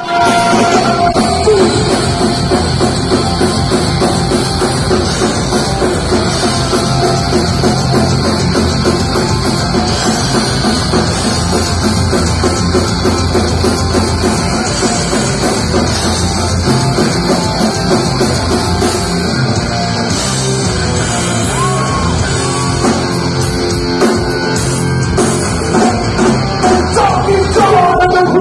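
Live rock band playing loud with vocals and a drum kit, heard from within the crowd at a concert.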